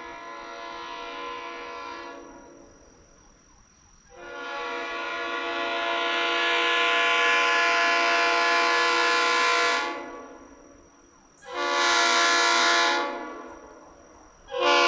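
Leslie RS3L Supertyfon three-chime locomotive air horn sounding its chord in blasts: the tail of one blast dies away, then a long blast of about six seconds swells up, a short blast of under two seconds follows, and a third begins near the end.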